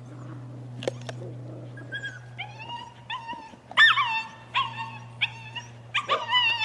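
Border collie puppy giving a string of short, high-pitched yips and barks, starting about two seconds in and coming roughly once or twice a second, loudest a little before the midpoint.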